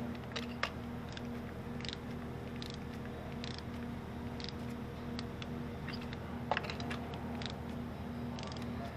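Scattered short clicks of a ratchet and click-type torque wrench as a spark plug is tightened down in its plug well, over a faint steady hum.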